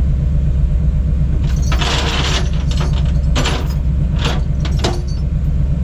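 Off-road wrecker's engine idling steadily, with a few short metallic clanks and rattles in the middle while recovery gear is handled beside the truck.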